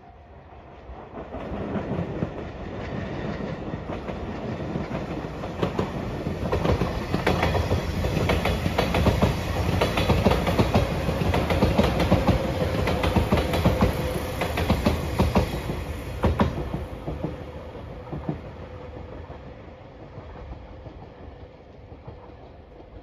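JR Shikoku 8000 series electric limited express train passing close by. It builds up over the first few seconds, runs loudest in the middle with a rapid run of wheel clicks over the rail joints, and fades away over the last several seconds.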